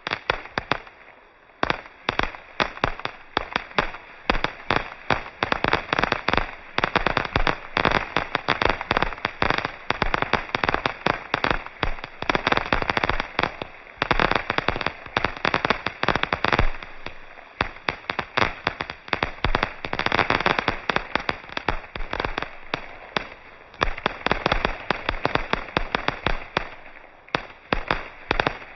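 Aerial fireworks bursting in rapid, overlapping volleys: many sharp bangs and crackles, densest and loudest in clusters in the middle and later part.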